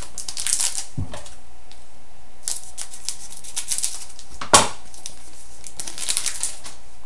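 Trading cards and foil pack wrappers being handled, crinkling and rustling in three short spells, with one sharp knock about four and a half seconds in.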